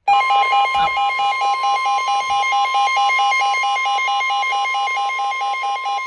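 NOAA Weather Radio warning alarm tone, a steady electronic tone near 1 kHz that starts abruptly, with a second tone beeping rapidly over it, about five beeps a second. It is the attention signal that comes before a severe weather bulletin.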